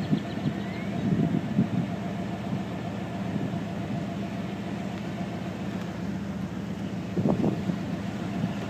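Steady low hum of an idling vehicle engine, with a constant faint tone over it.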